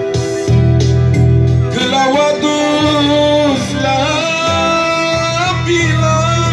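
A Christian song with a strong bass and held instrumental chords; a singer's voice comes in about two seconds in and carries the melody.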